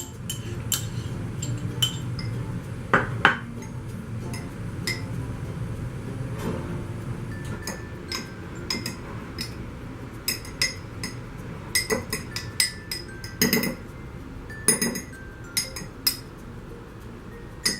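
A spoon clinking and tapping against the inside of a mug, spreading sauce over batter: many light ticks, with a louder pair of knocks about three seconds in and a busier run of knocks in the last few seconds.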